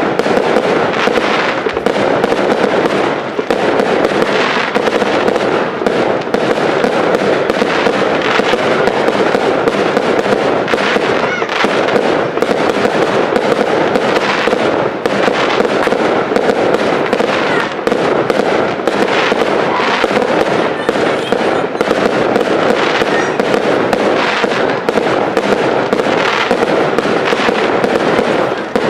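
Aerial fireworks display: shells bursting in quick succession, many bangs a second with constant crackling between them.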